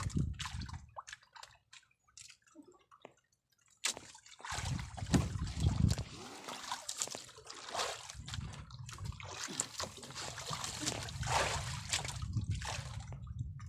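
Sea water sloshing and splashing against the hull of a small outrigger boat drifting with its engine off, with scattered clicks and rubs as a fishing handline is hauled in by hand. It goes almost quiet for a couple of seconds near the start.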